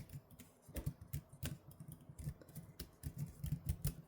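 Typing on a portable Bluetooth keyboard: irregular keystroke clicks, several a second.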